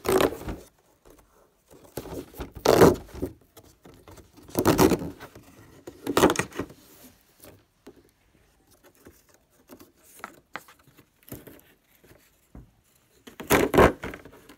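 Cardboard headphone box being handled: several short scraping, rubbing bursts a second or two apart as it is gripped and turned, with a few faint clicks in between.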